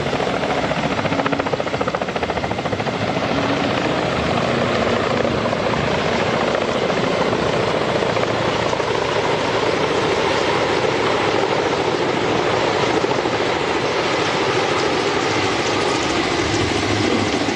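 Helicopter rotors and engine running overhead, a steady loud beating chop.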